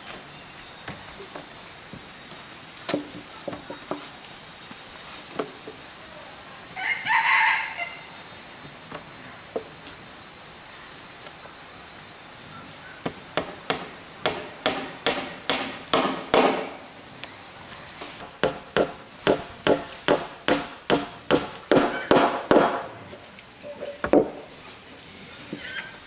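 A rooster crows once, about a quarter of the way in. From about halfway on, a tool strikes wood over and over, about two blows a second with short breaks between runs.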